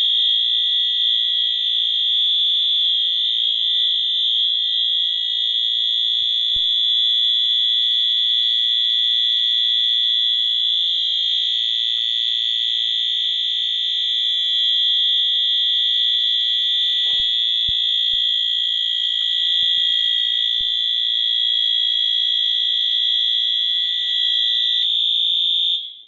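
Wheelock AS fire alarm horn strobes sounding a loud, steady, high-pitched continuous horn tone in alarm, set off by the pulled manual pull station. The horns cut off suddenly near the end as the alarm is silenced at the control panel.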